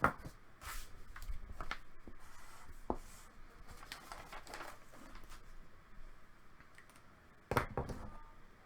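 Scattered rustling and handling noises with a few sharp clicks, a louder flurry of rustling and clicks near the end.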